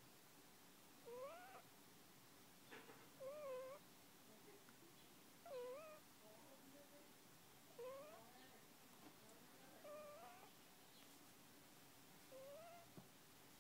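A one-month-old puppy asleep, making faint, high squeaky whimper-like sounds on its breaths, which the uploader calls snoring. There are about six of them, one roughly every two seconds, each a short wavering squeak.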